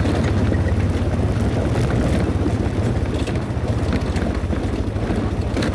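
ATV engine running steadily as the machine rides along a rocky dirt trail, with a few sharp knocks from the rough ground.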